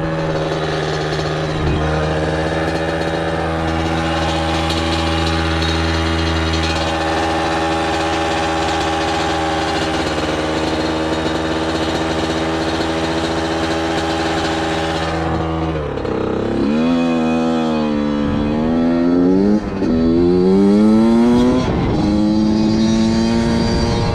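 Freshly rebuilt Suzuki RM85's two-stroke single-cylinder engine running at a steady speed, then revved up and down several times over the last third.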